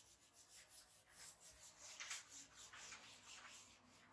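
Faint rubbing of a duster wiping a whiteboard clean, in quick repeated strokes of about three a second that stop near the end.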